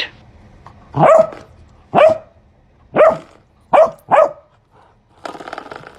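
A dog barking: five short, sharp barks, the first three about a second apart and the last two closer together. A brief rough, noisy sound follows near the end.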